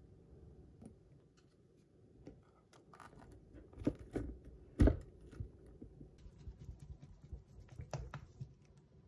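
A white plastic lid is pressed onto a Weck glass jar, giving a run of clicks and knocks with the loudest snap about five seconds in. The lidded jar of yogurt is then shaken by hand, with scattered light taps and knocks.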